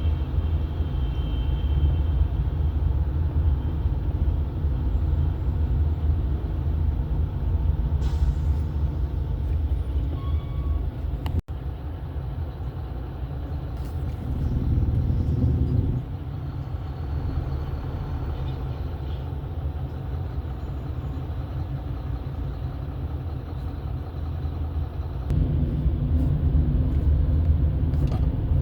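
Steady low rumble of a moving vehicle: engine and road noise, with a very brief dropout about eleven seconds in.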